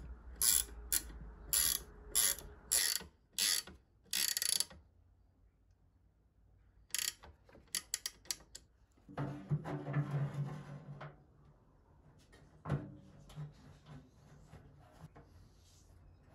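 Ratcheting ring spanner clicking in short strokes as it tightens the nuts bolting the pottery wheel's electric motor to its mounting plate: a run of about seven quick strokes in the first few seconds, then more ratcheting around seven seconds in and a longer burst of rattling from about nine to eleven seconds.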